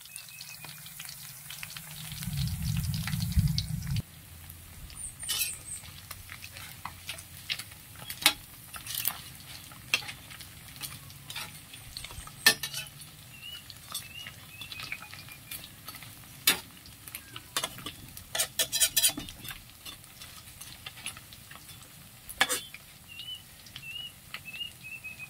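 Battered shrimp deep-frying in hot oil in a steel wok, sizzling steadily, while a metal spatula stirs and knocks against the wok in sharp clicks. A few short high chirps come and go, and there is a brief low rumble about two seconds in.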